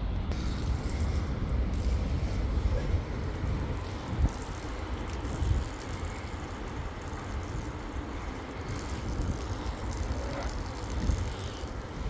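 Wind buffeting the microphone, a gusty low rumble that swells and eases.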